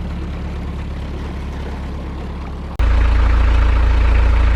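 Narrowboat diesel engine running steadily at idle. About three seconds in, it jumps abruptly to a louder, deeper hum.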